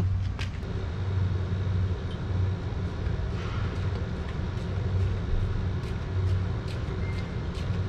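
A steady low mechanical rumble with faint scattered clicks.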